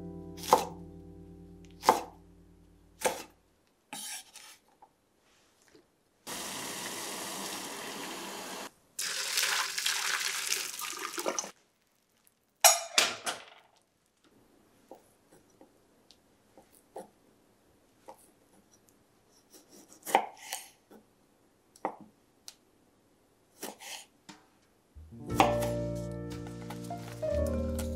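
A kitchen knife chops green beans on a wooden cutting board, three sharp knocks in the first few seconds. Then a tap runs for a few seconds, followed by a rougher splashing as hijiki seaweed is rinsed and drained in a metal mesh strainer, and after that there are scattered light clinks and taps of food and utensils going into a glass bowl. Soft acoustic guitar music fades out near the start and comes back near the end.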